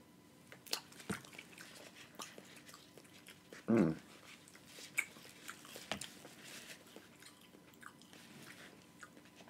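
Close-up mukbang eating sounds: chewing, smacking and cracking of seafood-boil crab and crawfish shells, heard as scattered small clicks and crunches. One short, louder voiced sound comes just under four seconds in.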